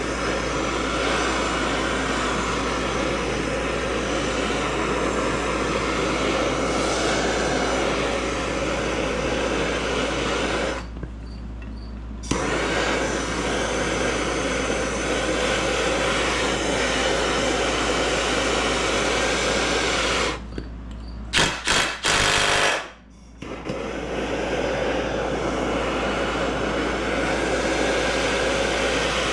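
Handheld propane torch burning with a steady hiss, its flame on an aluminum gimbal housing to expand the metal and break the corrosion bond on a stuck bolt. The hiss cuts out briefly about eleven seconds in and again a little past twenty seconds, with a few sharp clicks in the second gap.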